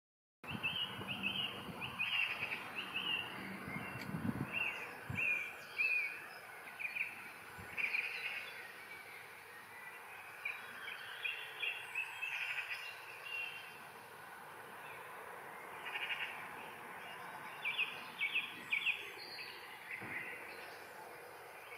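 Small birds chirping in quick repeated bursts over a steady outdoor background hiss, starting about half a second in. There are a couple of low thuds around four to five seconds in.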